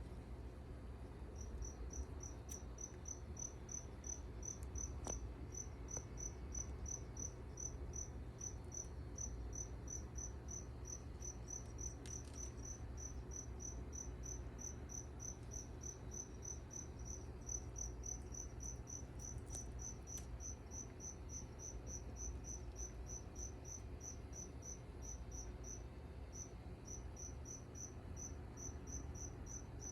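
A cricket chirping in a fast, even rhythm, about five chirps a second, pausing briefly near the end, over a steady low hum.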